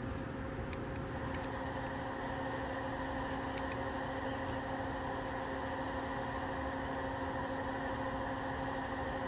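Steady machine hum with an even hiss from launch-pad equipment, unchanging throughout, with a few faint ticks.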